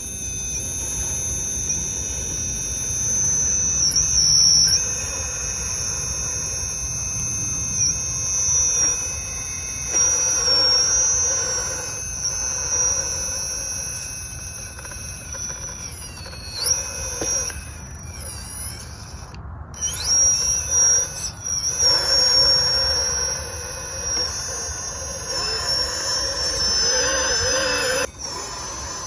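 Electric drive motor and gearbox of a radio-controlled 6x6 scale trial truck whining as it crawls over the course. The high whine shifts pitch and loudness with the throttle, with brief dips and glides.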